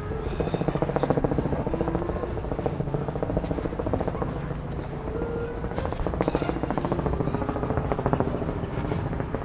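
Drawn-out fluttering fart sounds: a rapid buzzing pulse whose pitch steps up and down. It swells louder about half a second in and again later.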